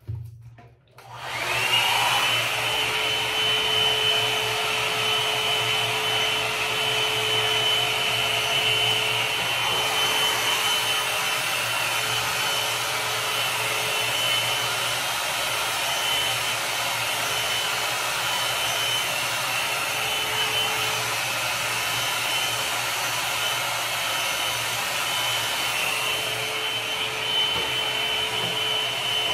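Philco Soft Beauty Rose 1200 W hot-air brush switched on about a second and a half in: its motor spins up with a quickly rising whine that settles into a steady high tone over the rush of blown air. It then runs steadily while being worked through wet hair.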